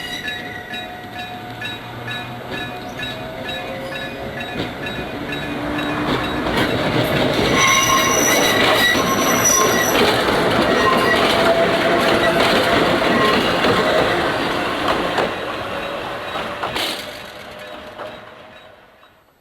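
A two-car Meitetsu Tanigumi Line electric railcar train passing, its wheels squealing on the rails in intermittent high tones over the running rumble. It builds to its loudest in the middle and fades away, cut off abruptly at the end.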